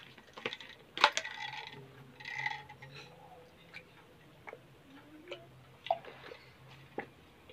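A water bottle's cap clicked and twisted open, with the sharpest click about a second in, then small clicks and gulps as water is drunk from the bottle.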